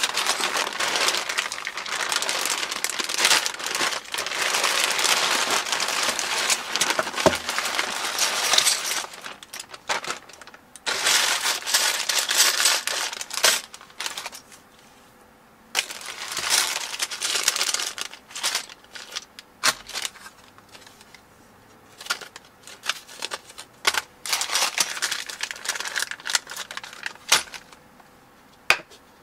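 Plastic zip-lock bags full of building bricks being handled and laid out, the bags crinkling while the loose bricks inside clack against each other. It comes in a long spell at first, then in several shorter bursts with quiet pauses between.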